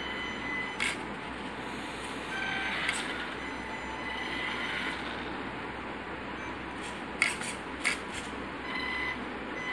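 A small electric toy-grade RC car driving on a tiled floor: the motor and gears whir with a thin whine that comes and goes as the throttle changes. A few sharp clicks come through, several of them close together in the second half.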